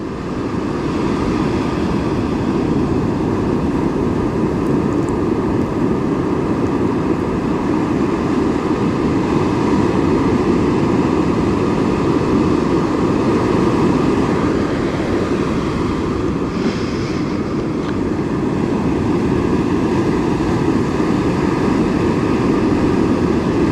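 Ocean surf breaking and washing up over the beach sand in a steady rush.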